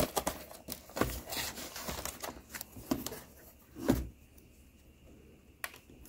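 Plastic laptop case being pried apart by hand: irregular clicks and knocks as the ThinkPad T460's bottom-cover clips let go and the plastic shifts. They come several times over the first few seconds, then it goes quieter with a single click near the end.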